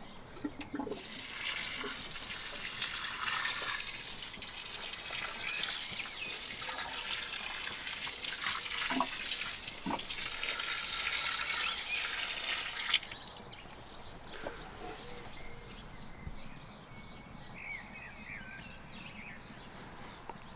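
Water pouring from a plastic watering can onto wood-chip-mulched soil, watering in young tomato plants: a steady splashing hiss that stops suddenly about two-thirds of the way through. Faint bird chirps follow.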